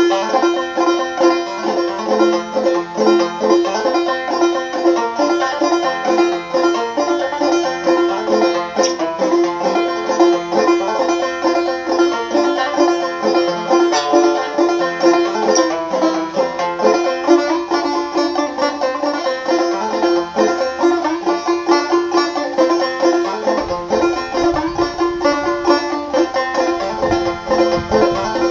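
Banjo played solo, picked in a quick, unbroken run of notes, with one note ringing steadily under the melody throughout.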